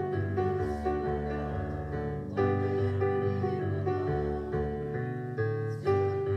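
Instrumental music, held notes and chords changing every second or so.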